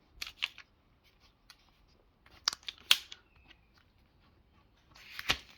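Plastic sleeve holding a banknote crinkling and clicking as it is handled and turned over, in three short bursts with the sharpest click about halfway through.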